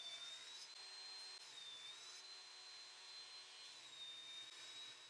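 Near silence: faint hiss with a thin, faint high whine that wavers slightly in pitch.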